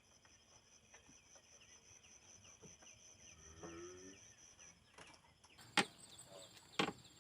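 Quiet outdoor ambience with a steady high tone and a fast repeated chirp, a short pitched call around the middle, and two sharp knocks near the end.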